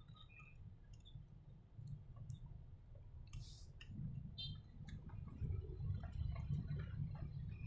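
Faint low rumble inside a car's cabin in slow traffic, with scattered light clicks and ticks.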